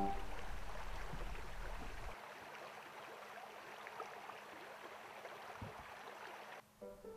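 Faint running water from a partly frozen creek, a soft, steady rush with a few small ticks.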